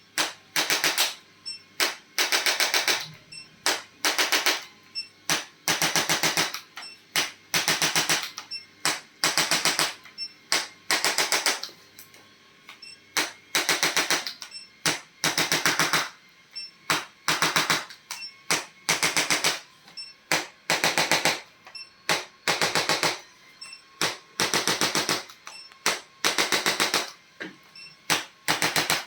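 Handheld electric chiropractic adjusting instrument rattling in short bursts of rapid taps, about one or two bursts a second, with brief pauses between runs.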